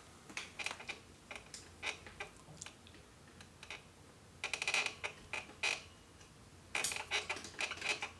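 Small metal tools and parts clicking and scraping against the mechanism of a Singer 348 sewing machine as the needle bar rocker arm stud is worked into place: scattered taps, then two runs of rapid clicking near the middle and near the end.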